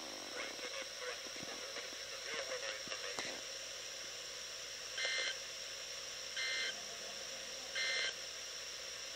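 Emergency Alert System SAME end-of-message (EOM) signal: three short bursts of digital data squawk, spaced about a second apart and beginning about five seconds in.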